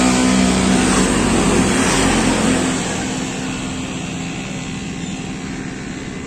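A motor vehicle's engine running close by, a steady hum that fades away after about three seconds, leaving a quieter steady background hum.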